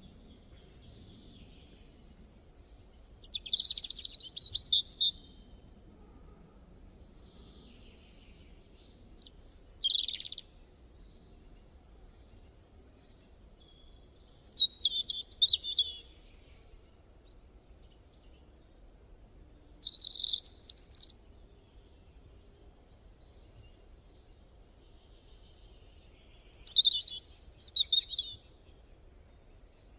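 Bird song: five short phrases of quick, high-pitched chirps and whistles, one every five to six seconds, over a faint low background hum.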